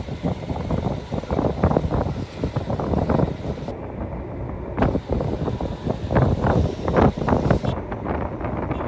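Irregular, gusty low rumble of wind buffeting the microphone, mixed with road-traffic noise.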